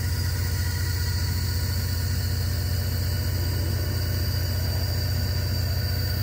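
Clark forklift engine and hydraulic pump running with a steady low drone while the fully raised mast is tilted forward.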